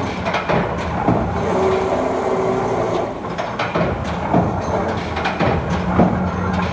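Mechanical CNC turret punch press punching 1.2 mm stainless steel sheet: a steady low hum from the flywheel drive, with sharp knocks of the punch strokes coming roughly once a second. A short whine sounds about two seconds in.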